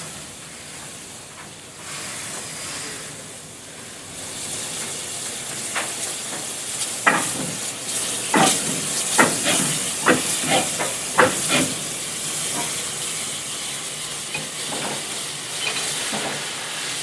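Austerity 0-6-0ST saddle-tank steam locomotives moving past at shunting pace, with steam hissing steadily. In the middle comes a run of irregular sharp metallic clanks and knocks from the moving engines.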